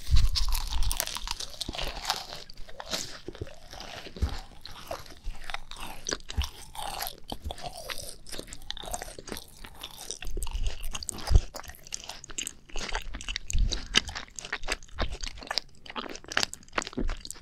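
Macarons bitten into close to the microphone: a loud crunch of the crisp shells at the start, then steady chewing full of small crackles and clicks as the macarons are eaten.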